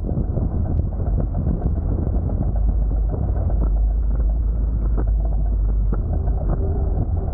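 Wind buffeting the microphone in a heavy, steady low rumble, over water rushing past a sailing catamaran, with scattered sharp ticks and slaps.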